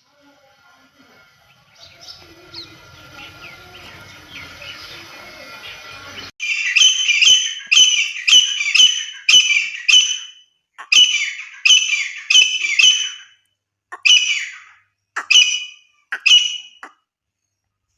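Grey francolin calling: a loud, high, repeated call given about a dozen times in quick runs, starting about six seconds in. Before that there is only faint background noise with a low hum.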